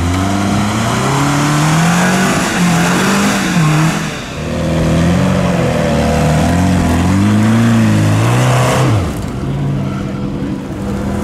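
Toyota RAV4 engine revving hard, its pitch rising and falling again and again as the car works through mud, then dropping off to a lower steady note about nine seconds in.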